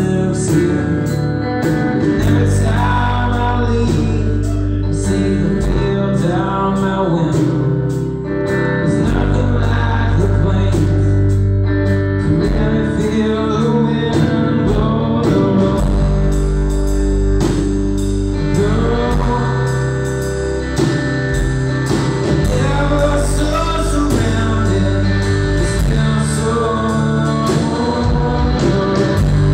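Live rock band playing: electric guitars and a drum kit keeping a steady beat, with a man singing.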